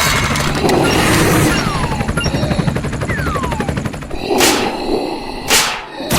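Cartoon sound effects: a rapid rattling like machine-gun fire over a low rumble, with two falling whistles, then two short loud bursts near the end.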